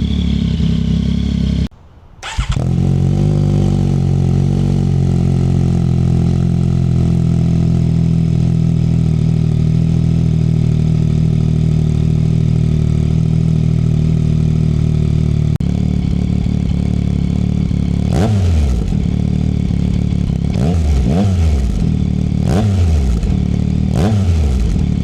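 2024 Yamaha MT-09SP's 890 cc inline-three engine, breathing through a MIVV X-M5 full-system exhaust with the dB killer removed. It runs at a steady speed, then is blipped about five times in the last seven seconds, each rev dropping back down.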